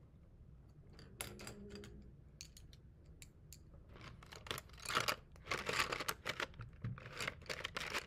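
Coloured pencils and paper being handled and put away: a run of irregular short rustles and clicks, busier and louder in the second half.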